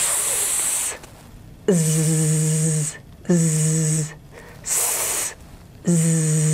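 A woman's voice alternating held 'sss' and 'zzz' sounds, about a second each: s, z, z, s, z. The voiceless s is a plain high hiss. The voiced z adds a low buzz from the vocal folds vibrating under the same hiss, showing the voiced–voiceless contrast.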